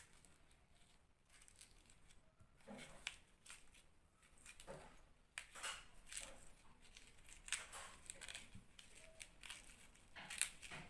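Faint, irregular scraping and cutting strokes into a raw turnip as its centre is hollowed out.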